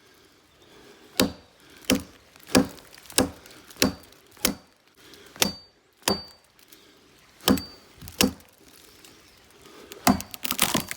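Origin Knives Bushcrafter axe, used without its splitting head, chopping a limb off a beech tree: about ten sharp strikes, roughly one every two-thirds of a second with a short pause midway, several with a brief metallic ring. A burst of cracking and rustling comes near the end.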